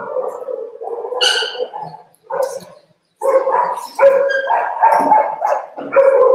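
A Yorkshire Terrier giving a string of loud, drawn-out cries, each held at a steady pitch, some short and some lasting well over a second.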